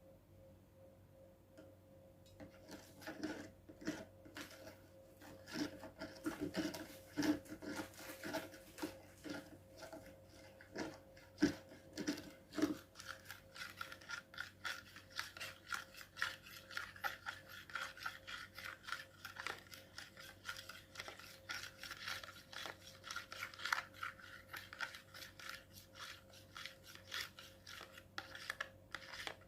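Rubbing and scraping of slime-making work, a dense run of small clicks and scrapes starting about two seconds in, over a faint steady hum.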